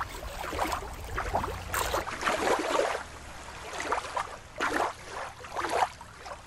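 Water lapping and sloshing at a shoreline in irregular swells; about two seconds in, it changes to a different recording of rippling, splashing water.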